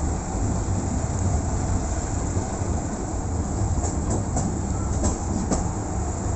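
Steam railway passenger carriage rolling slowly, heard from inside: a steady low rumble, with the wheels clicking over the rails a few times between about four and five and a half seconds in.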